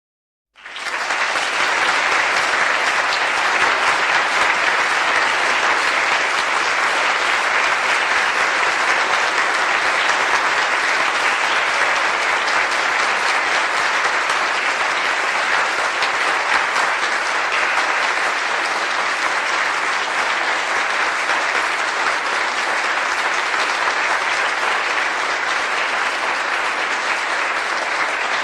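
A crowd of about a hundred people applauding, dense steady clapping that swells in quickly from silence in the first second and holds at an even level.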